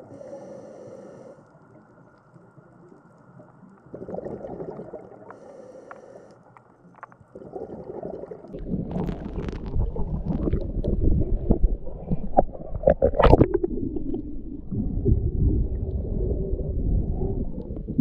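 Underwater sound picked up by a camera in a waterproof housing: muffled low rumbling and sloshing of moving water with scattered crackles. It is faint at first and turns much louder and rougher about halfway through.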